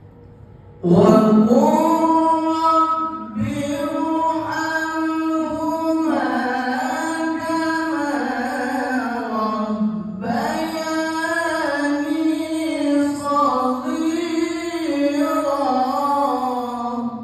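A qari reciting the Qur'an in the melodic tilawah style, one man's voice holding long ornamented phrases that rise and fall in pitch. It begins about a second in, with short breath breaks near three seconds and about ten seconds in.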